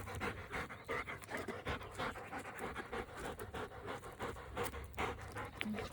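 A dog panting: quick, rhythmic breaths.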